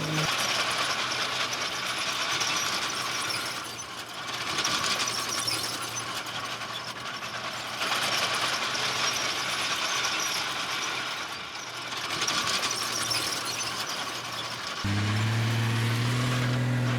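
Heavy earthmoving machinery working: a steady clattering, grinding mechanical noise that swells and fades every few seconds. A deeper diesel engine note comes in strongly near the end and sags in pitch.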